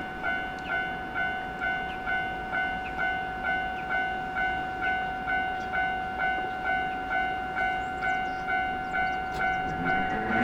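Japanese railway level crossing's warning bell ringing in a steady, evenly repeated ding, just under two strikes a second.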